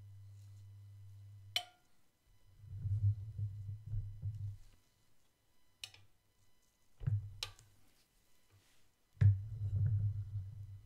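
Sharp clicks and taps of a spatula against a ceramic plate and pancakes, several times, with a low hum that is steady at first and then comes and goes.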